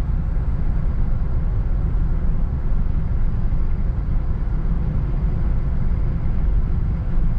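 Steady low rumble of engine and road noise heard inside a Jeep's cabin while it drives along at road speed.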